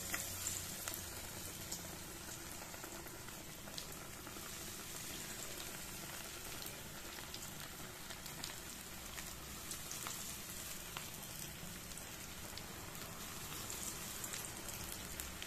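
Balls of lentil vada batter deep-frying in hot oil in a steel kadai: a steady sizzling and bubbling with occasional small pops.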